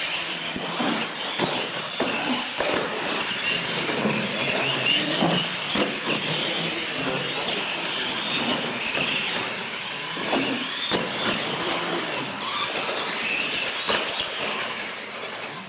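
Two R/C monster trucks racing side by side on a concrete floor: their electric motors and gearboxes whine high and steadily, with knocks here and there as the trucks hit and come off the wooden launch ramps.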